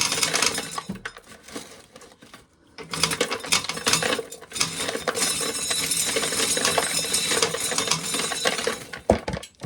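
Corn sheller stripping kernels off ears of corn: a dense clicking, rattling clatter, a short spell at the start and a longer unbroken one from about three seconds in until near the end.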